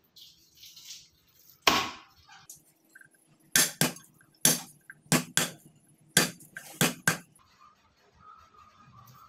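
A Chinese cleaver striking garlic cloves on a thick round wooden chopping block. One heavier knock with a short ring comes first, then about ten sharp hits in quick pairs over some four seconds, followed by quieter handling.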